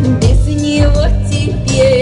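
Amplified music: a woman singing into a microphone over a backing track with a steady beat, holding long notes.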